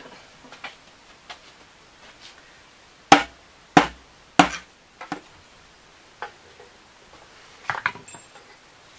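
A mallet striking a wooden piece down onto a wooden tabletop: three solid knocks a little over half a second apart about three seconds in, then a lighter tap, with a few faint knocks before and after.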